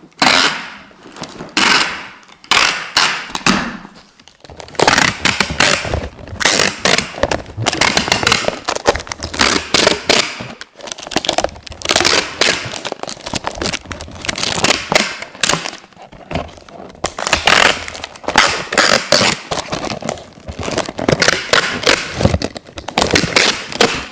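Adhesive tape being peeled off the roll again and again: loud crackling rips, each lasting under a second, with short pauses between pulls.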